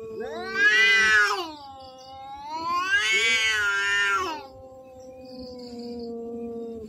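Two cats caterwauling at each other in an aggressive standoff: a low, steady yowl is held throughout, while two loud wails rise and fall over it, about a second in and again about three seconds in.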